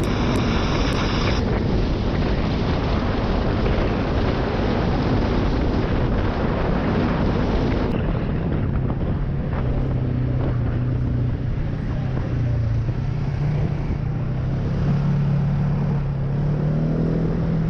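ATV engine running at speed with heavy wind noise on the microphone. About halfway through the wind eases and the engine's steady hum comes through, its pitch creeping up near the end.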